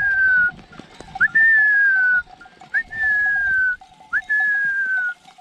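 A person whistling to drive sheep out to graze. The whistles repeat about every second and a half, each a quick upward flick followed by a long, slowly falling note.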